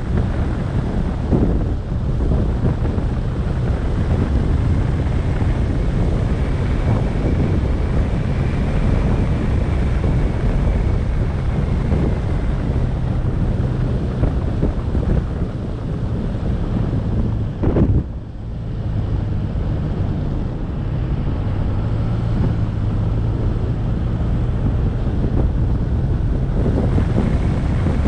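Wind buffeting the microphone over the steady low rumble of a moving vehicle. There is a faint whine that rises and falls gently in the first half, and a single sharp knock about eighteen seconds in.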